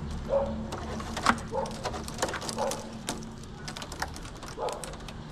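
Bundled black fibre-optic drop cables rustling and clicking against each other and the post as they are pulled apart and sorted by hand, with many short sharp ticks scattered irregularly, over a steady low hum.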